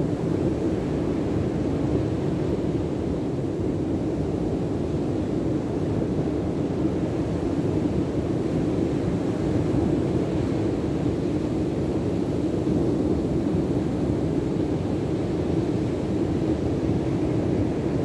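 Steady low rush of wind and breaking sea surf, unbroken throughout.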